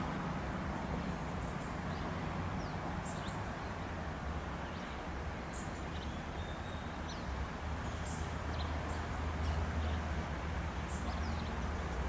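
Outdoor ambience: a steady low rumble under short, high bird chirps every two to three seconds.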